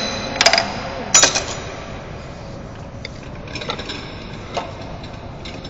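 Metal striking metal: two ringing blows about half a second and a second and a quarter in, then a few lighter metallic clicks, as a drift is hammered into the drill machine's spindle slot to knock out the taper-shank tooling.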